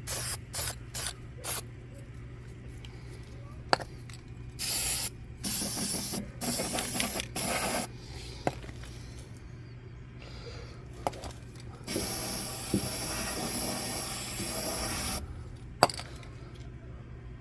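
Aerosol can of rust-killing paint sprayed in hissing bursts: several short squirts, then one longer spray of about three seconds. A few sharp clicks fall between the bursts.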